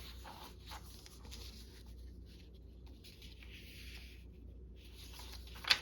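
Faint scratching and rustling of paper being handled and worked by hand, with a single sharp tap just before the end.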